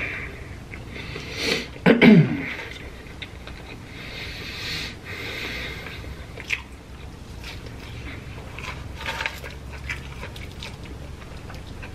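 A person eating fried food. About two seconds in there is a loud moan that falls in pitch, then a long breathy exhale, then quiet chewing with a few scattered crunchy clicks.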